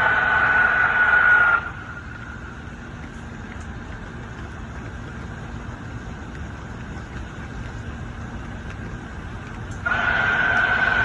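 A loud, steady, high-pitched scream-like tone from the sky cuts off abruptly under two seconds in. It fades to a faint trace, then comes back at full strength near the end. The person recording suspects it might be a lightning warning siren.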